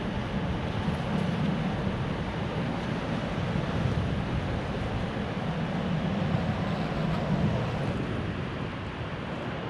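Steady rush of airflow against the microphone of a paraglider in flight, a constant wind noise without a break.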